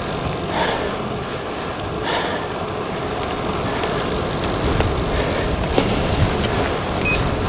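Steady rush of wind on the microphone of a bicycle coasting downhill.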